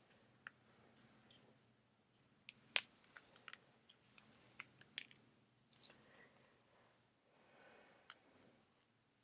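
AirPods and their packaging being handled and unwrapped: scattered small clicks and brief rustles, with one sharp click about three seconds in.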